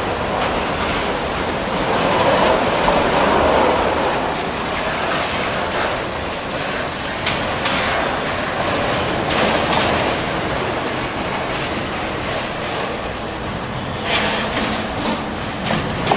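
Freight train rolling past close by: the steady rattle and rumble of autorack and container well cars on the rails, with wheel clacks over rail joints, more frequent near the end.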